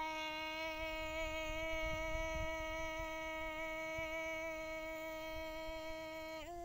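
A woman singing Hmong kwv txhiaj, traditional sung poetry, holding one long, steady note. The pitch steps up slightly near the end.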